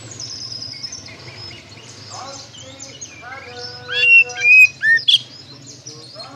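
Oriental magpie-robin (kacer) singing a varied run of whistles and slurred notes. It is loudest in a burst of rising and falling whistles about four to five seconds in.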